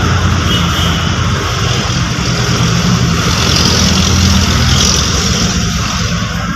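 Mitsubishi L300's diesel engine running at a steady idle, with a constant low drone.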